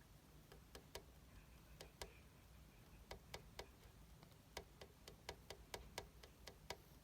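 Faint, sharp clicks over near silence, unevenly spaced: a few scattered ones, then about three a second from about three seconds in.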